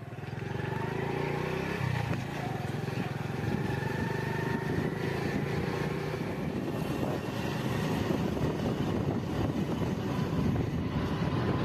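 Small vehicle engine, most likely a motorcycle, running steadily as it rides along a rough, broken road, with wind and road noise. The engine note rises a little about two seconds in.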